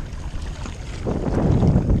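Wind buffeting the microphone, with sea water washing against shoreline rocks, growing louder about a second in.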